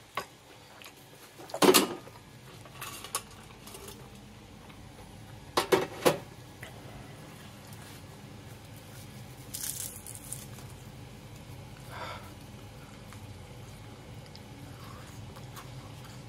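Kitchenware being handled: a few sharp clinks and knocks of dishes or utensils, the loudest about two seconds in and a quick pair around six seconds, with a brief scrape near ten seconds, over a steady low hum.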